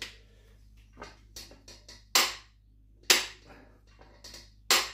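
Click-type torque wrench set to 200 N·m on a VW 16v engine's crankshaft bolt, clicking sharply three times about a second apart: the sign that the set torque has been reached. Fainter ticks come before the clicks.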